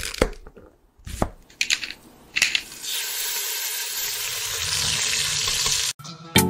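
Sound effects for an animated title intro: several sharp hits, then a steady hiss like frying or running water that cuts off suddenly about six seconds in.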